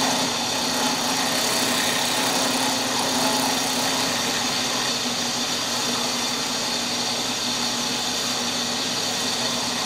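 Drill press running steadily, its spinning cutter milling a slow pass across a maple-and-ebony banjo bridge blank clamped in a jig, with a steady motor hum under the cutting noise.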